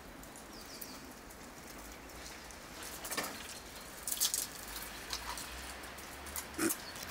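A few short, scratchy clicks and taps from a squirrel's claws on bark as it scrambles up the tree, over a quiet outdoor background: one about three seconds in, a quick cluster a second later and one more near the end.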